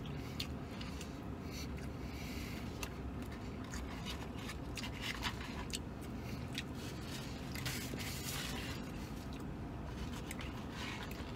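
A man chewing a large mouthful of meat sandwich: faint, scattered wet mouth clicks and smacks over a low steady hum.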